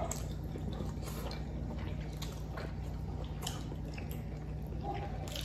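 Close-up mouth sounds of eating pork adobo and rice: soft chewing with scattered faint clicks, over a steady low hum.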